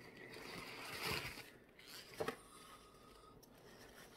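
Crumpled newspaper packing rustling as it is pulled out of a cardboard box, with a brief sharp crackle a little after two seconds in.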